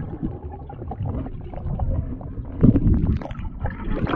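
Muffled underwater sound of pool water heard through a submerged camera: a low rumble of moving water with small clicks and bubble pops, and a louder surge about two-thirds of the way through. Near the end the camera reaches the surface and the water sloshes around it.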